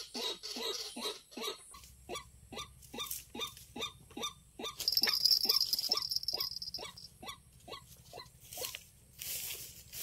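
White-breasted waterhen (ruak-ruak) call, a short croaking note repeated about three times a second, used as a trapping lure; it fades near the end. About five seconds in a louder rustling hiss breaks in, as a waterhen at the snare flaps its wings.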